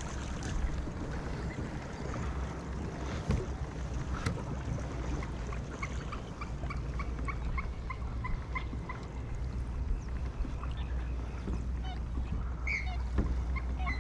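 Waterbirds calling on the lake: a run of short, evenly spaced notes from about five seconds in, then a louder call near the end. Underneath, a steady low rumble of wind on the microphone, with a couple of sharp knocks about three and four seconds in.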